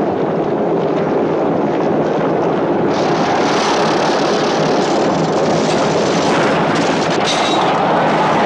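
Chariot race: galloping horse teams and rumbling chariot wheels in one continuous dense din. About three seconds in, a brighter hiss joins on top.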